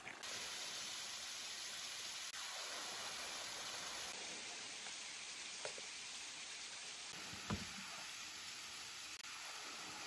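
Steady rushing hiss of water running over rock, a small mountain stream or trickle down a wet rock face. A single soft thump about seven and a half seconds in.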